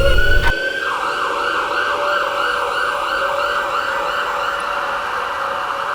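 Siren: a long rising wail that switches about a second in to a rapid, even up-and-down warble, which keeps going.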